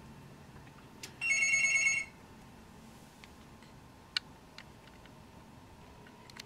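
A single short electronic tone, held steady for under a second with a sharp start and stop, followed by a few light clicks.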